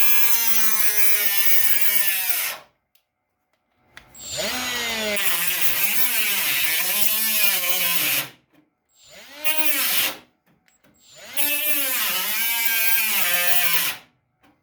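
A hand-held power tool cutting through automotive sheet metal. It runs in four bursts: one carries on from before and stops about two and a half seconds in, one long run sits in the middle, then a short run and a final run that ends shortly before the close. Its pitch sags and recovers repeatedly as it bogs under load.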